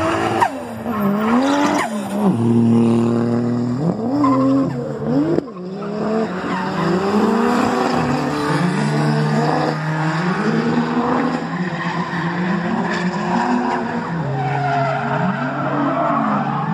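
Drift car's engine revving hard and dropping back again and again through a slide, with the tyres squealing on the asphalt.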